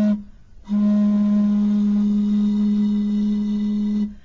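An empty plastic bottle blown across its mouth, giving a low hooting tone like a flute. A short toot ends right at the start, then one long steady note is held for about three seconds.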